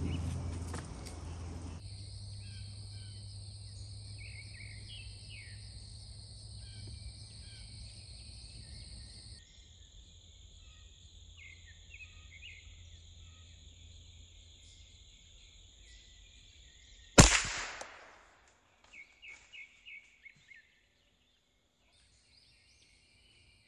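A single gunshot about two-thirds of the way in, a sharp crack that dies away within a second. Before it, a steady high-pitched insect drone and scattered bird chirps; a short run of bird notes follows the shot.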